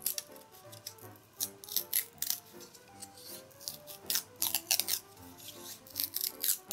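Dry, sharp crackling of a bamboo strip being split lengthwise by hand, coming in short irregular runs, over background music with a gentle melody.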